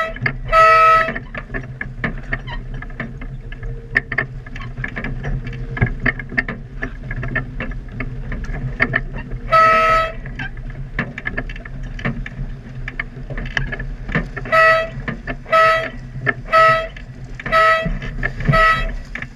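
Race-committee horn sounding start signals for a dinghy race. There are two blasts at the beginning and a longer one about ten seconds in, then five short blasts about a second apart near the end. Steady wind and water noise runs underneath.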